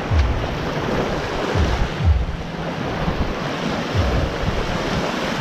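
Small waves washing up onto a sandy beach, with wind buffeting the microphone in low, uneven thumps every second or so.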